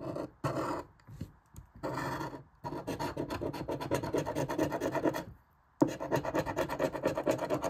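A large metal coin scratching the coating off a scratch-off lottery ticket in rapid back-and-forth strokes, with short pauses about a second in and again about five and a half seconds in.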